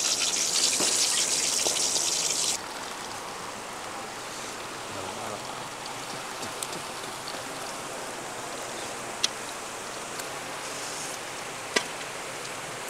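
Kola urundai (minced-meat balls) deep-frying in hot oil in a pan, a loud crackling sizzle. About two and a half seconds in, the sizzle drops sharply to a quieter steady hiss, with a few sharp pops later on.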